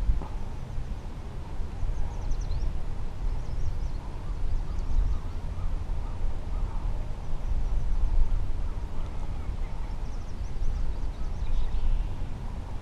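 Wind buffeting the microphone in a steady low rumble, with faint bird calls a few times in the background.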